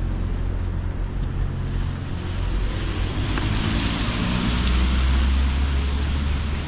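A motor vehicle passing: a low engine rumble with a hiss that swells about halfway through and then eases off.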